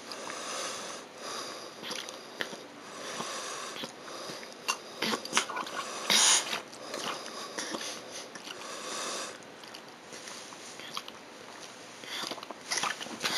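Toddler drinking milk from a sippy cup close to the microphone: noisy breathing through the nose between sucks, with small sucking clicks and a louder sniff about six seconds in.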